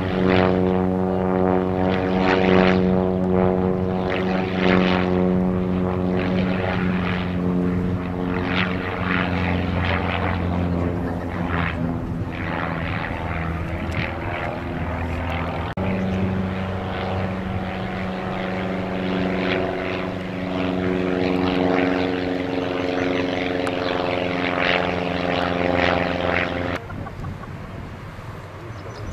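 Propeller-driven light aircraft's piston engine droning steadily in flight, its pitch changing briefly about halfway through. The sound drops off abruptly a couple of seconds before the end.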